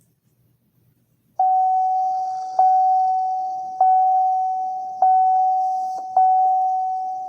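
General Motors door-open warning chime: a single-pitch electronic bong repeating five times, about one every 1.2 seconds, starting about a second and a half in, each one fading before the next.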